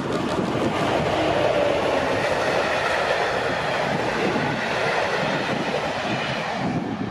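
An electric-locomotive-hauled passenger train passes at speed, the locomotive and then its coaches rushing past close by. The sound fades near the end as the last coach goes by.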